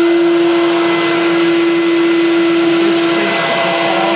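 Vacuum-forming machine's vacuum motor running, a steady whine over a rush of air, drawing a heated clear plastic sheet down tight over a visor mold.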